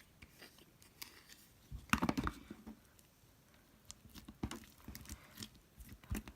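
Slime being kneaded and mixed by hand: irregular wet squishes and small clicking pops, with a louder cluster about two seconds in and another run in the second half.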